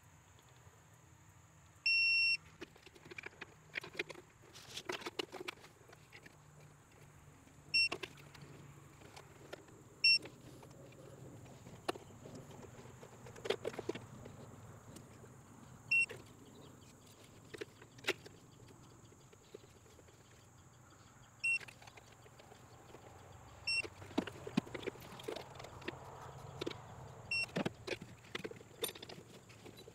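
Digital torque wrench beeping as the intake manifold bolts are brought to 5 Nm (44 in-lb) on the first pass of the tightening sequence: six short high beeps spread through, the first longer, each marking a bolt reaching set torque. Ratchet clicks and small metal clanks of the wrench on the bolts come in between.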